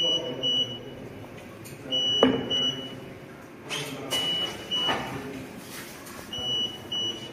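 Electronic alarm buzzer of a TSP-CV1 closed tissue processor sounding high double beeps that repeat about every two seconds. A single knock comes about two seconds in.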